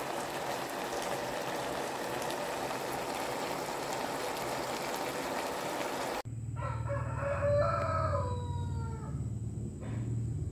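Durian flowers simmering in a little water in a wok, a steady sizzling hiss. About six seconds in it cuts off abruptly and a rooster crows once, falling in pitch at the end, over a low steady hum.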